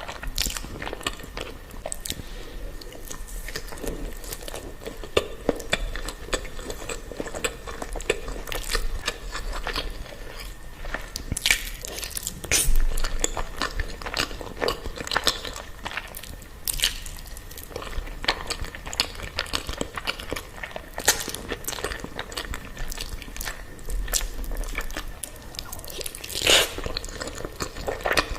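Close-miked eating sounds of creamy Alfredo pasta: wet chewing and slurping with irregular clicks and smacks, a few louder ones near the middle and near the end.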